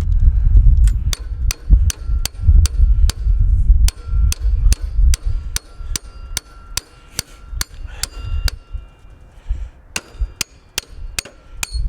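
Hammer tapping a snowblower axle through its new brass bushings: a steady run of sharp metallic strikes, about two to three a second, each with a short ringing note, with a brief pause near the end. A heavy low rumble sits under the first few seconds.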